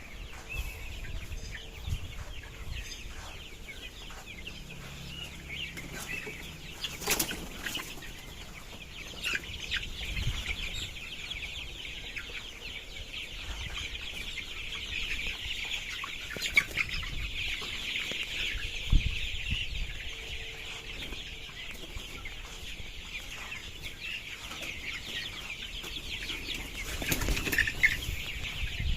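A flock of 32-day-old colour-bird chickens clucking and cheeping continuously as one bird is chased and caught by hand, with bursts of wing flapping and several sharp thumps scattered through.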